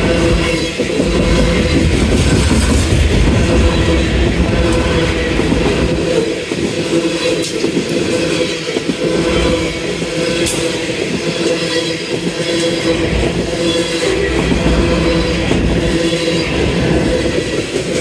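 CSX freight train's coal hopper cars rolling past: a continuous rumble of steel wheels on rail that swells and dips as the wheel sets go by, with a steady tone over it.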